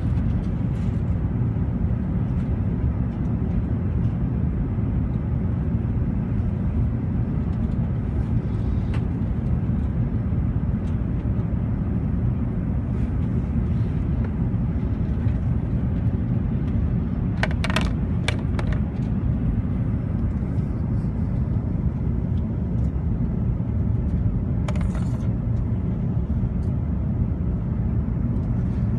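Steady low cabin rumble inside an Airbus A380 airliner, heard from the upper deck, with a few brief light clicks or rattles about halfway through and again later.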